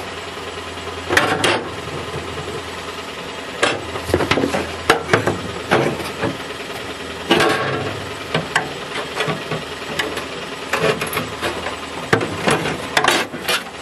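Air-powered cutting tool working through the sheet-metal trunk floor in short bursts, with irregular metal knocks and clanks.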